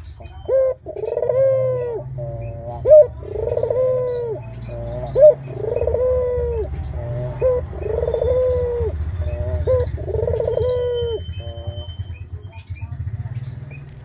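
Barbary dove (puter) cooing: five repeated two-part coos about every two seconds, each a short sharp note followed by a longer drawn-out coo, then the calling stops.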